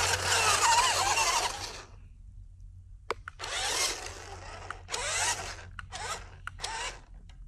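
Toy RC rock crawler's electric motor and drivetrain whirring continuously as it drives through dirt, cutting off about two seconds in. After a click, the motor runs again in a series of short bursts of about half a second each, the tyres churning dirt and mud.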